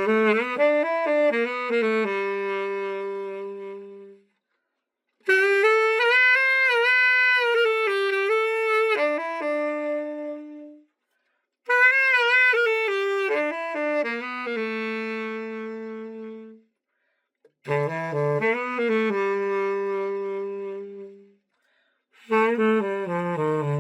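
A tenor saxophone plays four short melodic phrases, each ending on a held note that fades away, with pauses of about a second between them and a fifth phrase starting near the end. This is a play test of the freshly overhauled Yanagisawa T-50 tenor.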